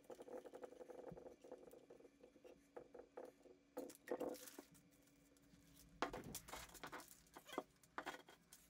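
Faint, scattered clicks and scrapes from hand-tightening the plastic mounting nut on a faucet shank under a porcelain sink basin, with the braided supply line being handled; most of them come about halfway through and again near the end, over a faint steady hum.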